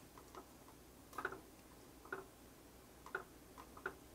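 Metal tongs clicking lightly against a mesh strainer basket while spinach is blanched in broth: a few faint, separate clicks, roughly one a second.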